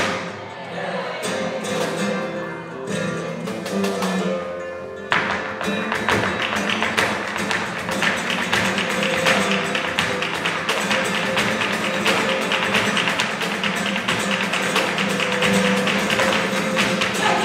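Flamenco alegrías on acoustic guitar, the notes first plucked alone. About five seconds in, a dense run of rapid percussive strikes joins and keeps going: the dancer's footwork with hand-claps and cajón.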